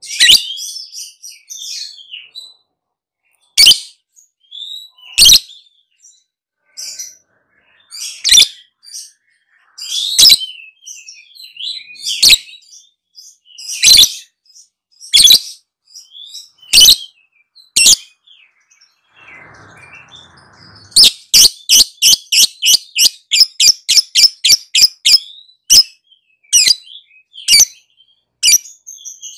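A lovebird calling: sharp, high-pitched chirps spaced a second or two apart, then, about two-thirds of the way in, a fast chattering run of calls at about three or four a second lasting several seconds before slowing again, the rapid trilling 'ngekek' that Indonesian keepers prize in the bird's song.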